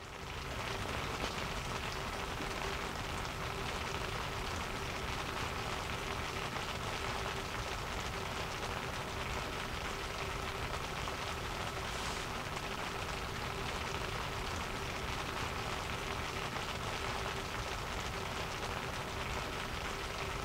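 Heavy rain falling steadily on a tent, an even hiss with a faint steady hum underneath.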